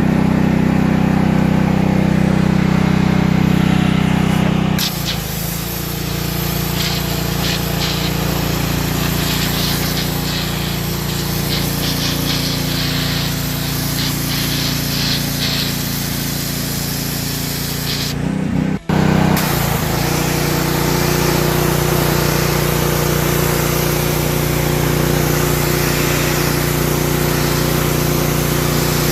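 Simpson gas pressure washer running at a steady drone, with the hiss of its high-pressure water jet spraying. The engine note shifts abruptly twice.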